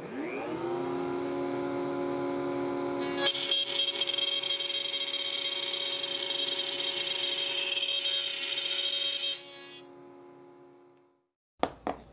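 A router mounted in a router table spins up with a rising whine and runs steadily. From about three seconds in, the bit cuts a groove into a hardwood piece, adding a harsher, noisier cutting sound with a high whine. A little after nine seconds it is switched off and winds down, and a couple of sharp clicks come near the end.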